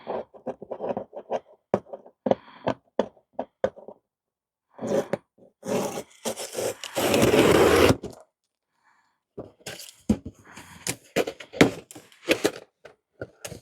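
Diesel heater parts and packaging being handled during unboxing: a run of knocks and rattles, then a loud scraping rustle of packaging from about five to eight seconds in, then more clatter.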